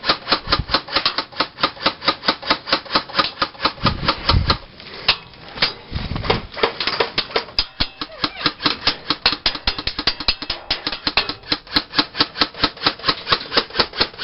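Semi-automatic airsoft fire: a fast, even run of sharp cracks, about four or five a second, with a short break about halfway.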